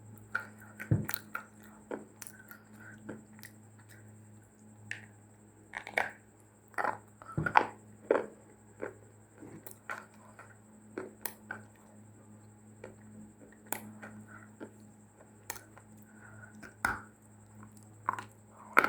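Dry clay (mitti) crunching and crumbling in irregular, uneven crunches, some loud, over a steady low electrical hum.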